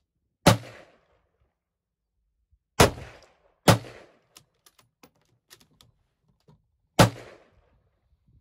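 Four rifle shots, the second and third less than a second apart, each cracking sharply and then dying away in a short echo. A few faint clicks sound between the third and fourth shots.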